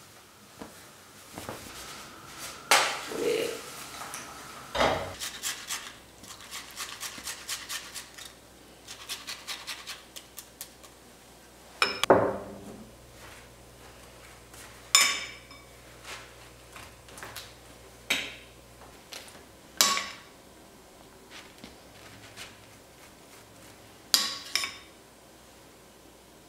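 Kitchen utensil sounds: separate clinks and knocks of a knife against a small ceramic bowl and a wooden cutting board, with a run of quick small ticks a few seconds in.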